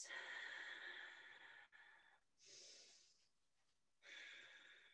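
Faint, slow, deep breaths, heard as three separate breaths. The first lasts about two seconds. They are drawn and let out deliberately while a yoga pose is held.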